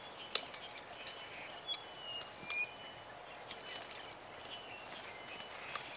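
Scattered sharp snaps and crunches of a mountain gorilla breaking and chewing green plant stems, with short high bird chirps in the forest behind.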